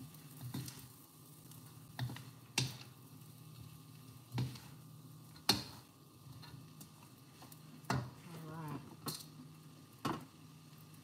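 Cooking spoon clicking and knocking against cookware in irregular single taps, about one every second or two, while food is stirred and mixed. Underneath are a faint sizzle from the stir-fry pan and a low steady hum.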